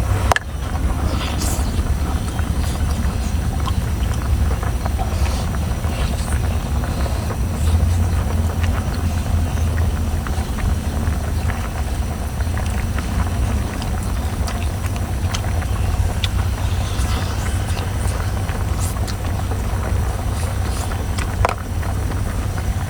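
A steady low engine drone runs throughout, with a few faint clicks and taps over it.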